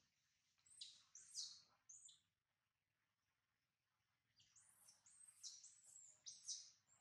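Newborn macaque infant crying in thin, high-pitched squeals: a few short falling cries about a second in, a quiet pause, then a longer run of cries about four and a half seconds in.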